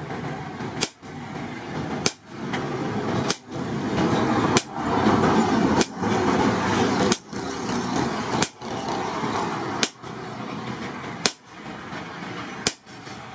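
Sledgehammer blows on hot steel at the anvil as a striker forges a knife blade: about ten sharp strikes, one every second and a bit, in a steady rhythm.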